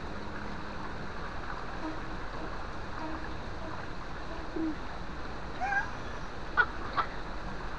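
Steady rush of water in a stone fish-therapy pool, the water stirring around feet dangled in it, with faint snatches of voices and two small clicks near the end.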